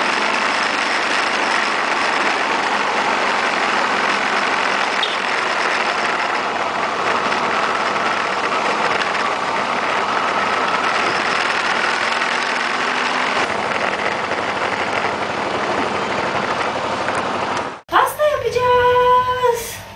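Steady rush of wind and riding noise from a moving motorcycle, heard through a camera mounted on the bike. It cuts off abruptly near the end.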